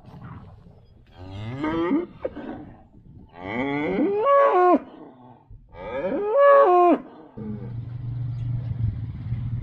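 Black Angus cow mooing three times, each long call stepping down in pitch at the end. About two-thirds of the way through, a vehicle engine starts up with a steady low hum.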